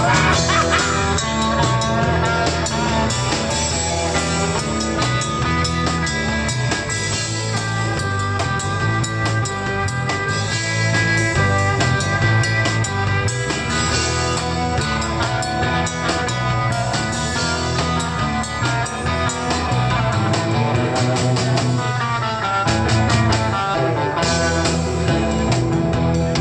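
Instrumental rock music with electric guitar, bass and a steady drum kit beat, a guitar break with no vocals.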